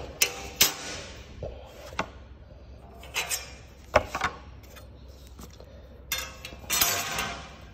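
Light metallic clicks and taps as a steel tape measure and marking tools are handled against steel stock, with a short scraping rattle about seven seconds in.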